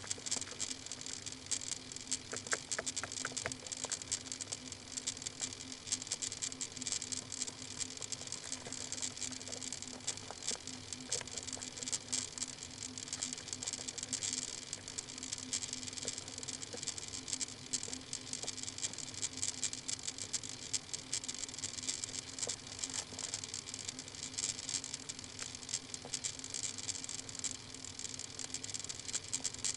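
Constant crackling hiss with a steady low hum underneath, unchanging throughout: the background noise of a live webcam's microphone.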